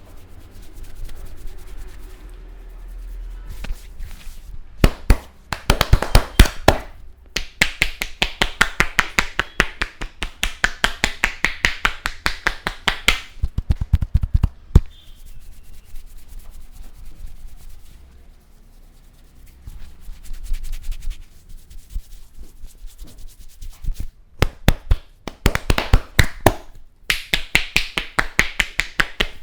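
Fast, evenly spaced strikes of a masseur's hands on a person's head and hair during a vigorous Indian head massage. There are two long runs, one from about a sixth of the way in to near the middle and one near the end, with quieter, scattered rubbing and tapping between them.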